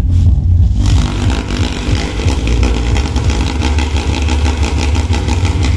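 Subwoofer in a carpeted box playing loud, heavy bass music, driven by a homemade 2SC5200/2SA1943 transistor amplifier. A harsh buzzing rattle joins the bass about a second in.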